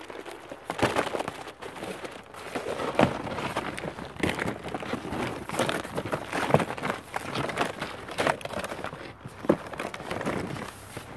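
Stiff plastic hull panels of a Backpack Barge folding boat being folded and stacked by hand: irregular rustling and flexing of plastic sheet with several sharp clacks as panels knock together.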